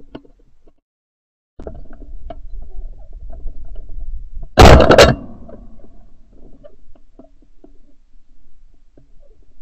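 A single shotgun shot about halfway through, so loud it clips, heard through a camera mounted on the gun barrel. Low wind and handling rumble runs around it.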